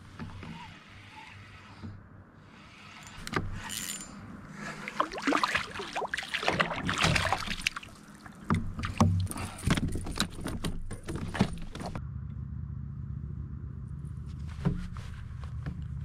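A brook trout being reeled in and landed into a plastic kayak. There is a busy run of clicks, rattles and knocks from the fish, rod and tackle being handled against the hull. After that comes a steadier low hum with only a few isolated clicks.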